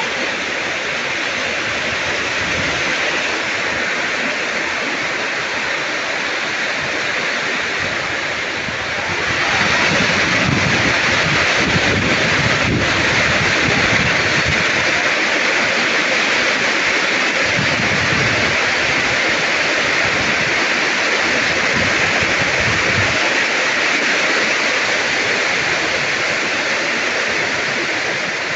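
Heavy rain pouring steadily, growing louder about nine seconds in.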